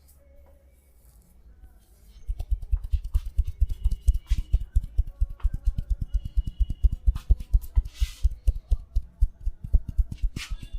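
Percussive hand massage: hands striking the body in a fast, even rhythm of dull thumps, about six or seven a second, starting about two seconds in.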